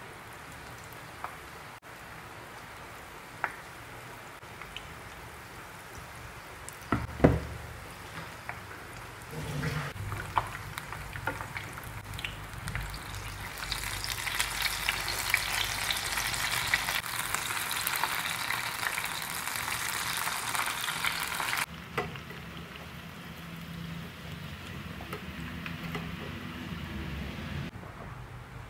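Batter-coated banana peppers deep-frying in hot oil, a steady sizzle. The sizzle swells much louder about halfway through, then drops back suddenly. There is one loud knock about a quarter of the way in, and a few lighter clicks.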